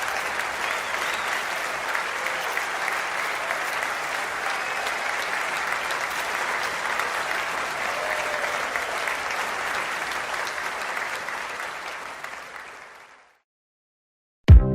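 A large audience applauding steadily, fading out about thirteen seconds in. After a second of silence, a pop track with a heavy beat starts right at the end.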